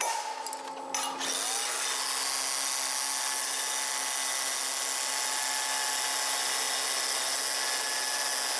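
Power drill spinning up about a second in, then running steadily with a high whine.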